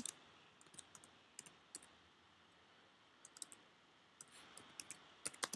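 Faint keystrokes on a computer keyboard as a name is typed: short runs of clicks with a pause of about a second and a half in the middle.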